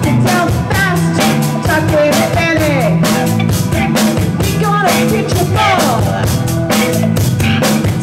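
Live blues-rock band playing: drum kit, electric bass and electric guitars, with a lead line that slides down in pitch again and again.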